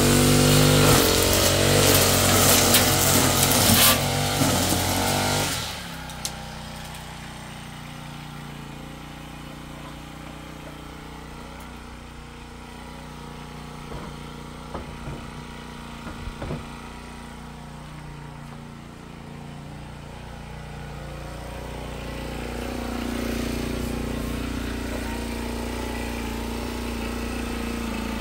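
An engine running loud for about five seconds, then dropping away to a quieter steady hum, with a few light knocks in the middle.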